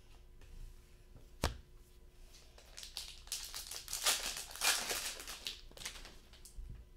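A trading card pack's foil wrapper being torn open and crinkled by hand, a burst of crackling that peaks about four to five seconds in. It follows a single sharp tap about a second and a half in, likely the card stack knocking on the table.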